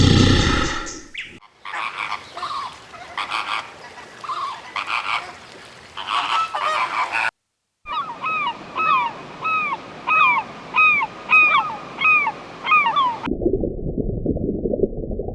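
A flock of geese honking, many short, repeated, down-curving calls overlapping, with a brief break partway through. A roar dies away in the first second, and a low rushing noise takes over near the end.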